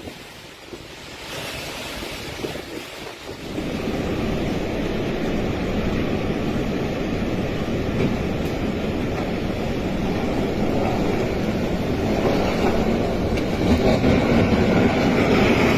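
Strong storm wind: a steady rushing noise that swells about four seconds in and stays loud.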